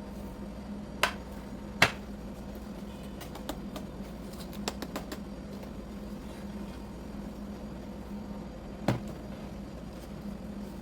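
A steady low hum with three sharp knocks, about one, two and nine seconds in, and a run of light clicks in between.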